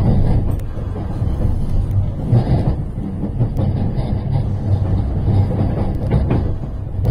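Cabin noise of a JR West limited express electric train running along the track: a steady low rumble of wheels on rail, carried through the window glass that the phone is pressed against.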